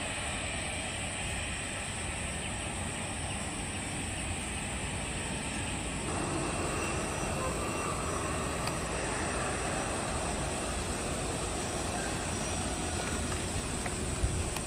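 Airliner engine noise, a steady rumble: a twin turboprop climbing out after takeoff, then, from about six seconds in, a Citilink Airbus A320's jet engines as it rolls along a wet runway.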